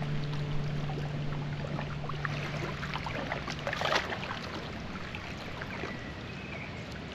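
Steady wash of moving water with small splashes, swelling briefly about four seconds in. A held low music note fades out in the first half.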